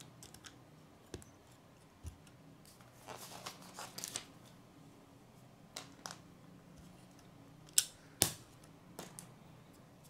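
Plastic Lego pieces clicking and snapping as they are pressed together and handled: a scatter of small sharp clicks, the two loudest close together about eight seconds in.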